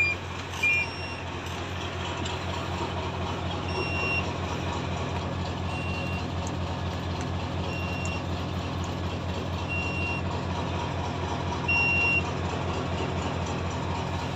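Ten-wheel truck's diesel engine idling steadily, heard from inside the cab, with a warning buzzer giving short high beeps about every two seconds, one held slightly longer near the end. The air tanks are not yet full, and the beeping fits a low-air-pressure warning.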